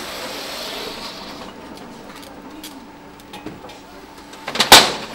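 Handling noise on a computer assembly line: light clicks and knocks of parts, then a loud clatter near the end as a computer case part is set down at the bench.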